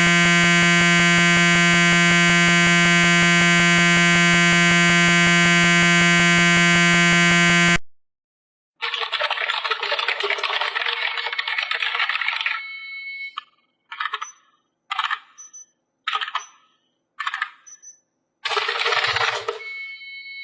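Error sound effects: a harsh, steady electronic buzzer tone held for about eight seconds that cuts off suddenly. After a short pause an electric bell rings for about four seconds, then gives four short rings about a second apart and one longer ring.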